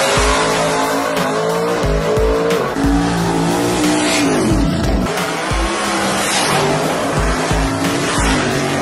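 Drag race car engines revving hard and accelerating, mixed with music carrying deep bass thumps; one engine note falls steeply about four and a half seconds in.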